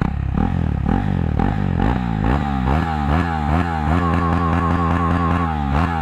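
KTM Duke 390 single-cylinder engine revved while parked with its exhaust removed, the pitch rising and falling about twice a second.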